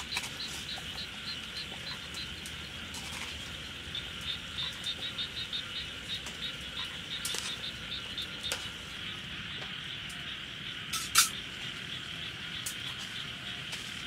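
Outdoor ambience on a rainy day: insects chirping in an even rhythm of about three chirps a second that comes and goes, over a steady high hiss of rain and insects. Scattered drips tap throughout, the sharpest about eleven seconds in.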